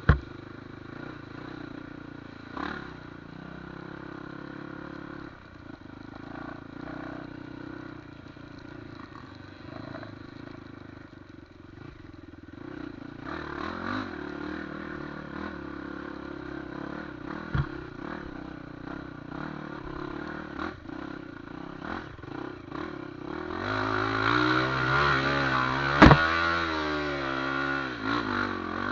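Off-road trail motorcycle engine running over rough ground, with clattering and sharp knocks. Near the end it revs harder, its pitch rising and falling, and the two loudest moments are single sharp knocks, one at the very start and one near the end.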